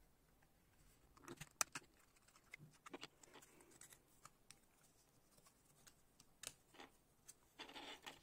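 Thin clear plastic packaging being opened and handled: scattered clicks and crinkles, the sharpest about one and a half seconds in, and a short rustle near the end as the device comes out.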